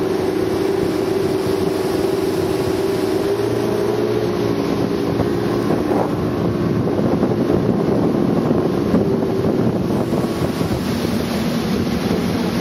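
Motorboat engine running steadily at speed, a constant drone with wind buffeting the microphone and water rushing past the hull.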